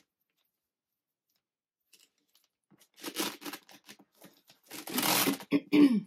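Silent for about the first three seconds, then rustling and scraping as leather-woven metal chain bag straps are handled, in two bursts, the second longer.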